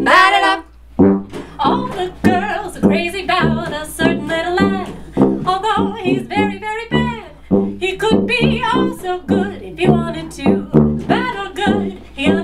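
Sousaphone taking an instrumental break in a swing tune, playing a bouncy run of short, detached notes.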